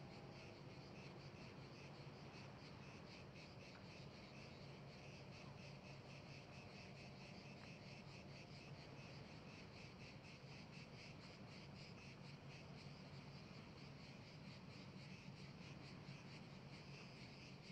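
Faint, steady chorus of insects chirping in fast, evenly repeating pulses, typical of crickets or grasshoppers in dry grass.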